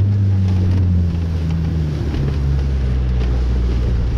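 Outboard motor driving a Zodiac inflatable boat across open water, its engine note dropping slowly and steadily, with wind and rushing water over it.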